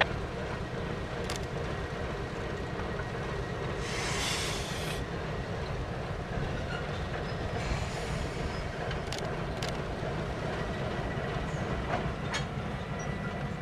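Diesel-hauled freight train moving slowly on a shove toward its stopping point, a steady low rumble with a few sharp clanks. There is a brief hiss about four seconds in and a faint steady whine near the end.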